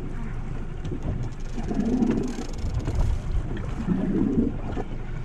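Wind rumbling on the microphone over the boat's running motor and the wash of the sea, a dense low noise with a couple of swells.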